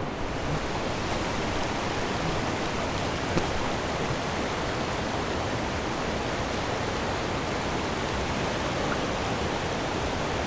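Steady rushing of a shallow, fast-flowing river running over a stony bed, an even noise that holds at one level.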